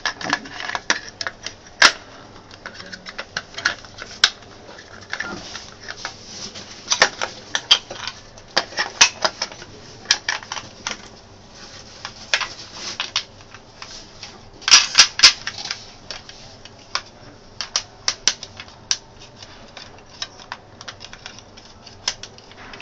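Irregular clicks and clacks of equipment parts being handled and fitted together while a monitor stand base is assembled, with a quick cluster of sharp knocks about fifteen seconds in.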